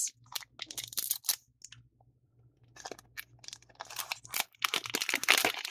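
Foil Digimon Card Game booster pack wrapper crinkling and tearing as it is opened by hand. Sparse crackles at first, growing denser and louder from about three seconds in.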